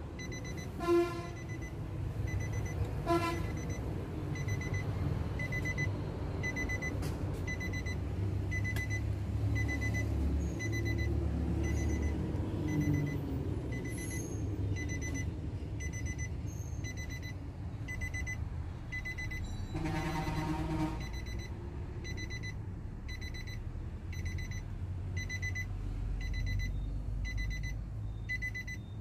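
Nissan Navara pickup's cabin warning chime beeping steadily at about three beeps every two seconds, the reminder that sounds with the door open. Brief horn-like toots cut in about a second in and again two seconds later, and a longer one comes about two-thirds of the way through.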